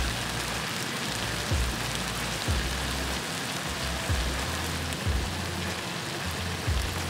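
Chicken breasts sizzling in hot fat in a wide pan as the second side fries: a steady crackling hiss. Low background music runs underneath, its bass beat giving soft thumps about once a second.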